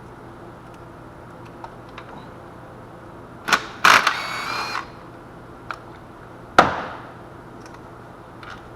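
Hand tools and loose metal bolts clicking and clanking as intake bolts are worked out, with a short ringing metal rattle about four seconds in and a sharp clank near seven seconds.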